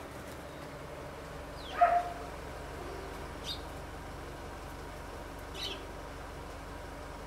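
A dog barks once, loudly, about two seconds in, its pitch sliding down. Two brief high chirps follow, about three and a half and five and a half seconds in, fitting the Eurasian tree sparrow at the bird bath.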